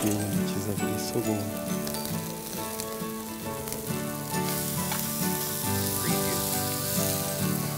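Oil-basted whole fish sizzling on a wire grate over a charcoal fire, growing louder about halfway through as the fish is turned over the coals. Background music plays underneath.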